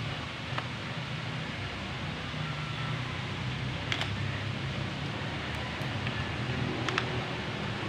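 A steady low hum, with three short sharp clicks of small parts or tools, spaced a few seconds apart, as a hair dryer is being worked on by hand.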